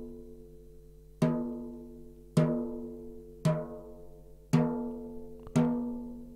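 Snare drum batter head tapped lightly with a drumstick, five single strokes about a second apart, each ringing out with a clear pitched tone and fading. The head is being checked lug by lug while its tension rods are fine-tuned to an even pitch.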